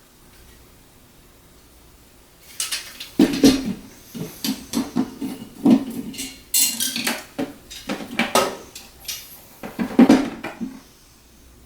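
Irregular clattering and knocking of hard parts being handled and set against each other, many sharp knocks over several seconds, starting about two and a half seconds in and stopping near the end.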